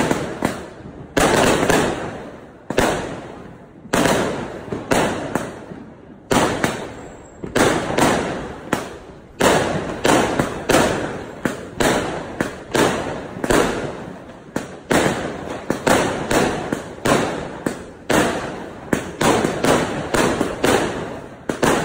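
Aerial fireworks bursting in quick succession: a steady run of sharp bangs, one or two a second, each trailing off in a fading echo.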